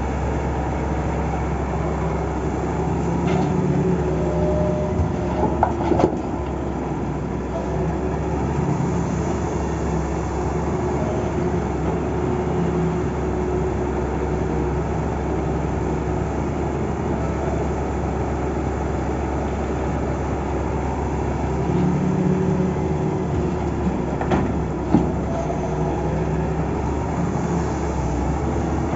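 Diesel engine of heavy earthmoving machinery running steadily, with a few sharp metallic knocks, the loudest about six seconds in and another around twenty-five seconds in.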